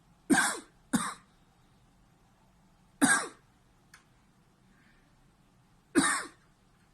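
A man coughing in four short single coughs, two in quick succession, then one about two seconds later and another about three seconds after that. It is a cough reflex set off by pressing on a schwannoma of the vagus nerve in his neck.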